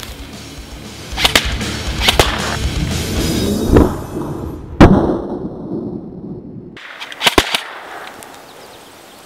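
A run of sharp bangs and cracks as the range targets are hit: balloons popping and a small charge going off in a puff of smoke. The loudest bang comes about five seconds in and has a long ringing tail, and two quick cracks follow a couple of seconds later.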